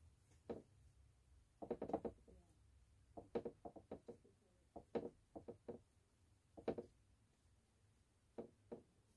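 Light knocks and taps in irregular clusters, a paintbrush and paint containers being handled on a wooden work table.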